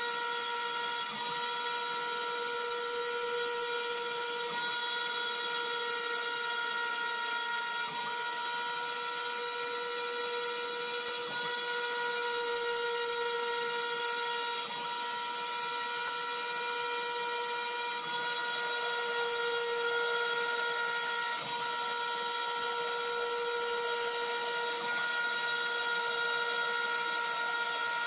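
A rotary tool working as the spindle of a homemade CNC router, milling squares into an MDF board, gives a steady high whine with brief dips about every three and a half seconds. A vacuum cleaner sucking up the chips at the cutter runs along with it.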